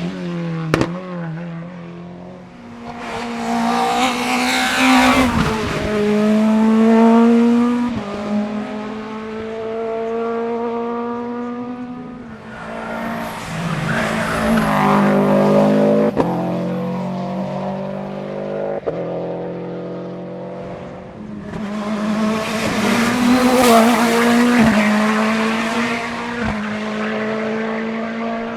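Hillclimb racing car engines revving hard, pitch climbing and dropping through gear changes, with tyres squealing on the tarmac during three louder passes.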